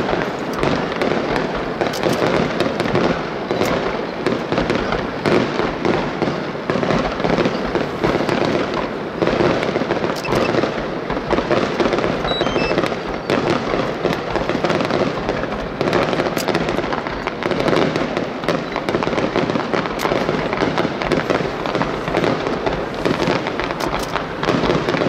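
Aerial fireworks display: a dense, continuous barrage of overlapping shell bursts and crackles with no break.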